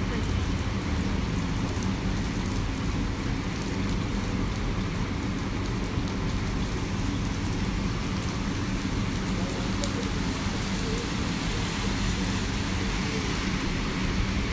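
Steady rain falling: an even hiss with faint scattered drop ticks over a low rumble.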